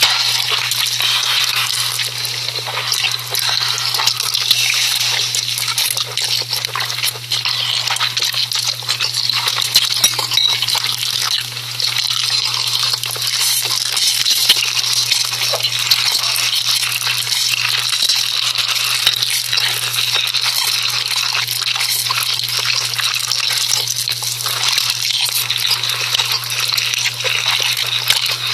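ASMR noodle sounds: continuous wet, crackly noodle noises with dense small clicks, over a low steady hum.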